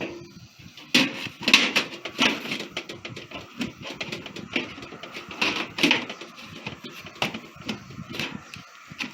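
Irregular knocks and clatters from a feed storage can and its lid being handled and fitted shut, with scraping between the knocks.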